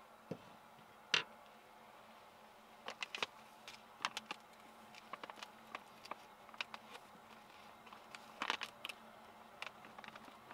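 Faint crinkling and crackling of a packaging bag being folded shut by hand, in scattered small clicks, with a single louder tap about a second in.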